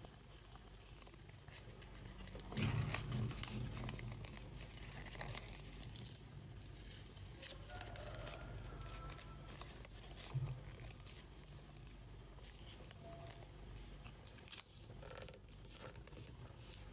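Sheet of paper being folded and creased by hand: crinkling and rustling crackles, loudest about three seconds in, with a single louder crackle about ten seconds in.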